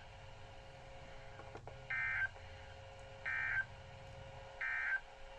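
NOAA Weather Radio SAME end-of-message code: three short, identical bursts of digital data tones a little over a second apart. They mark the end of the alert transmission.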